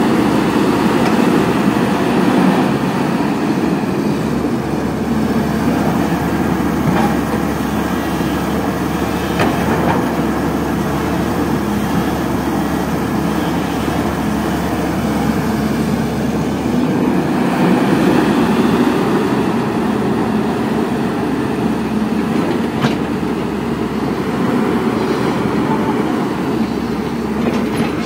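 Caterpillar 320D hydraulic excavator's diesel engine running steadily under load, with its hydraulics working as the boom and bucket dig and lift soil.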